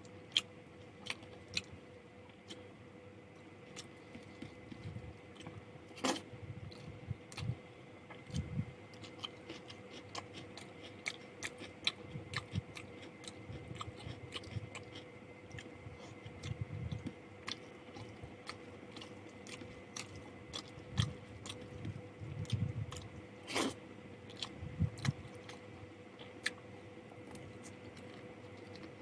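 Close-up chewing and mouth sounds of a person eating rice with chicken curry and fried potato: many small wet clicks and soft thumps of chewing, with two sharper clicks, one about six seconds in and one later on. A faint steady hum sits underneath.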